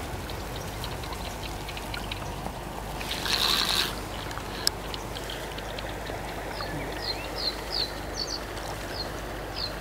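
Steady rush of river water around a wading angler playing a fish, with a short louder rushing burst about three seconds in. Short high falling chirps repeat a few times a second in the second half.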